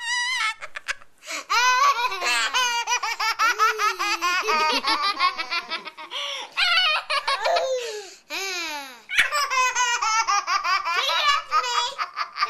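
A baby belly-laughing and giggling in long runs of quick, high-pitched laughs, joined by a young child's laughter, with a few short pauses for breath.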